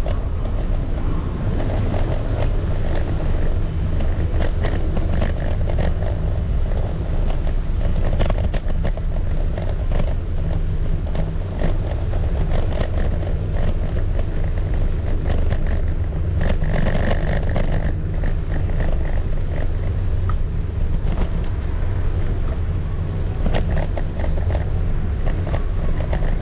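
Electric scooter rolling over brick paving: a steady low rumble from its small wheels, with irregular rattles and clicks as it crosses the joints between the bricks.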